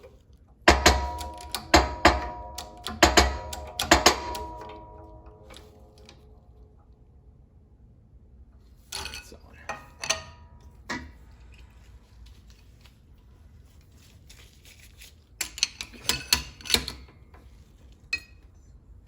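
Steel parts clanking against each other, each knock ringing on briefly: a run of about five loud clanks in the first few seconds, then two shorter bouts of lighter metal clatter later on.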